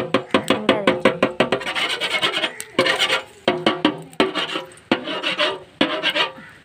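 A spoon scraping and rasping in rapid repeated strokes against the bottom of a large aluminium pot while stirring sliced onions in oil.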